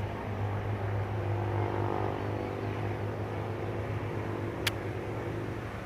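A motor vehicle passing by, its engine hum swelling in the middle and fading, with a single sharp click near the end.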